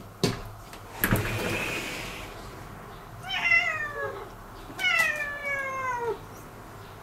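Two sharp knocks in the first second or so as a sliding door is opened, then a cat meowing twice, each call falling in pitch, the second one longer.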